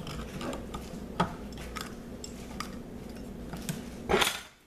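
Small knife clicking and scraping against the mouth of a small plastic bottle as its foil safety seal is cut away, with a sharp click about a second in and a louder rustling scrape near the end.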